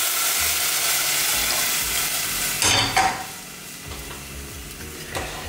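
Chicken broth poured into a pot of hot butter and garlic, sizzling hard. About three seconds in, a couple of sharp knocks as the small pot is set down on the stove grate, and the sizzling drops to a quieter simmer.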